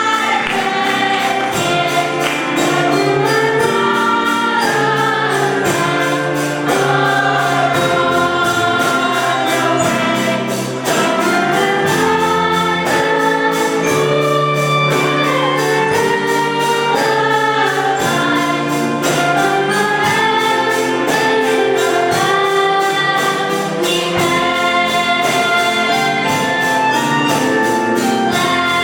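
Choir singing a gospel song over instrumental accompaniment with a steady beat.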